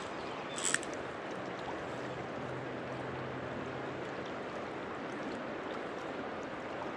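Steady rush of a flowing river, with one short sharp click under a second in.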